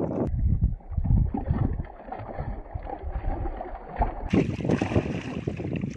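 Wind buffeting the microphone and sea water slapping against a small outrigger boat, with uneven gusts. Near the end, splashing as a hooked trevally is hauled up on a handline and thrashes at the surface beside the boat.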